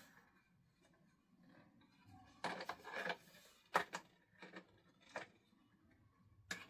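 Faint handling clicks and knocks of the vacuum's wall-mount hanger and parts being picked up and fitted together: a cluster of short, sharp clicks in the middle and one more near the end.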